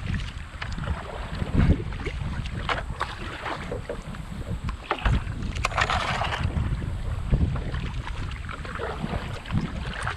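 Kayak on the water: paddle splashes and light knocks, the largest splash a little before the middle, over wind rumbling on the microphone.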